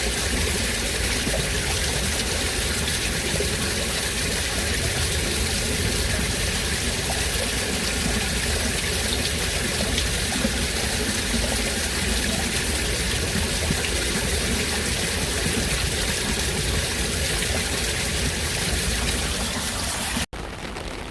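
Steady rain falling: a loud, even hiss with a low rumble. Just before the end it cuts suddenly to a quieter, thinner rain recording.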